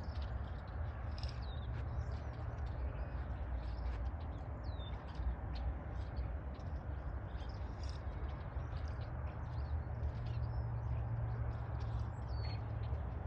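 A large flock of birds chirping and calling, many short high calls overlapping throughout, over a steady low rumble.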